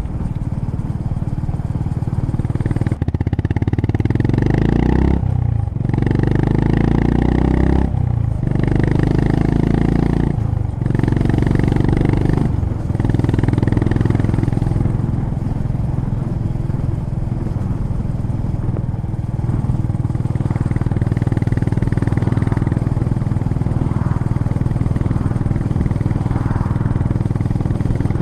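Honda GB350's air-cooled single-cylinder engine and exhaust heard from the rider's seat, pulling up through the gears, with the engine note rising and then dropping briefly at each of four upshifts. After the shifts the engine settles into a steady cruise.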